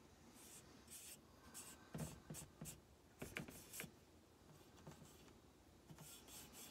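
Faint, short scratchy rubbing strokes of fingertips working metallic wax over the raised edge of a silver-plated tray, coming in small quick runs, the clearest a little past two seconds and around three and a half seconds.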